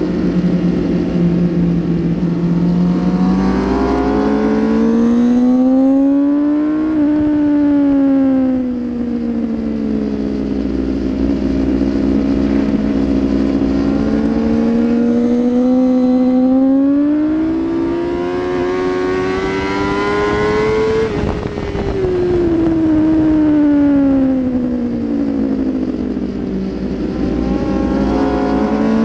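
2016 Kawasaki ZX10R's inline-four engine at track speed, its pitch climbing as it pulls hard and sinking as it slows, with the longest climb about halfway through and another rise near the end. Wind rush runs underneath.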